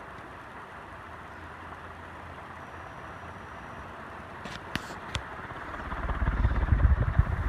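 Banvil Envirofan Gold Line industrial ceiling fan running at medium speed: a steady hum and rush of air. There are a couple of sharp clicks about five seconds in, then a louder low rumble builds near the end.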